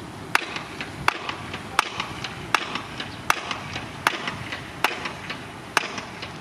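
Bulldozer's steel crawler tracks clanking as it travels: sharp clacks about every three-quarters of a second, with lighter clicks between them.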